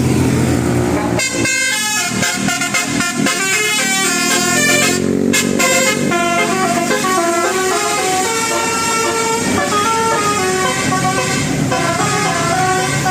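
Bus 'telolet' Basuri multi-note horn playing a fast tune of short stepping notes, starting about a second in.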